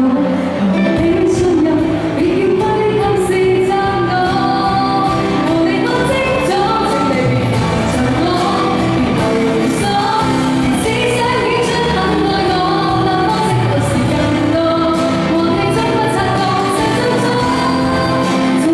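A young woman singing a pop song live into a handheld microphone over backing music with a steady beat, amplified through a PA.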